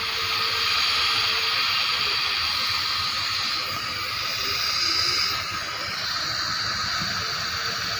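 Compressed air hissing steadily as it flows through a plastic sampling tube into an air-testing instrument. A faint steady tone is also heard near the start and again near the end.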